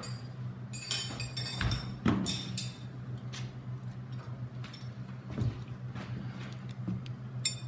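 Metal wrenches clinking and clattering as they are picked up and handled: several sharp metallic clinks in the first few seconds and another near the end, over a steady low hum.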